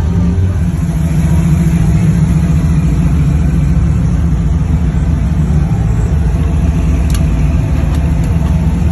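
Engines of classic Chevrolet cruisers, a 1960s Impala convertible and then an orange C10 pickup, running with a deep, steady exhaust note as they roll slowly past close by.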